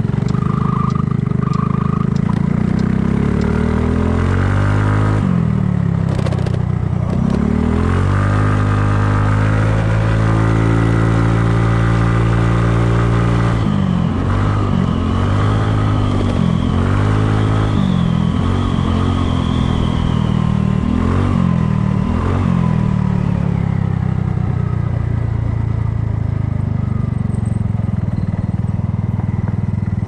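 Kymco People scooter's engine pulling away from a stop, its pitch climbing as it gathers speed, then running at road speed with the throttle rising and falling. It settles lower in the last few seconds as the scooter slows, with wind rushing over the microphone.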